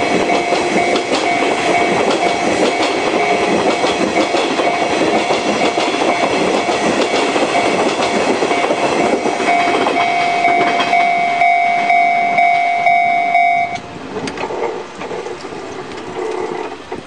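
Japanese level-crossing warning bell ringing steadily while a Nishitetsu train passes with wheel clatter on the rails. The bell cuts off about fourteen seconds in, and the train noise fades.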